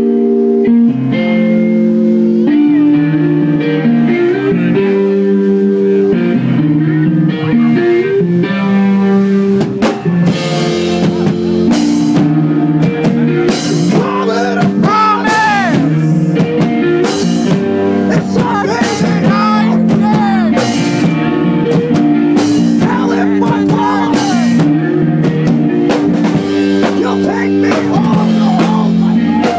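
Live math-rock band playing: electric guitars pick out shifting note patterns, with the drum kit and cymbals coming in hard about ten seconds in.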